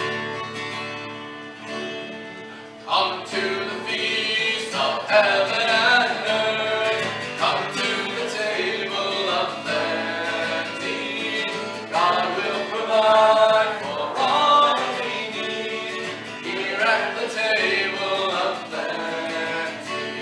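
Acoustic guitar strummed to accompany a sung hymn. The guitar plays alone at first, and the singing comes in about three seconds in.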